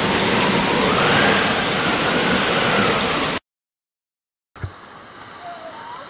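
Whitewater rapids of the river rushing loudly and steadily. About three and a half seconds in it cuts off to a second of silence, then comes back much quieter with a soft thump.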